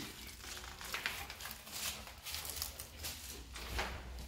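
Footsteps on a gritty, debris-strewn concrete floor and up bare concrete stairs, irregular steps about two or three a second.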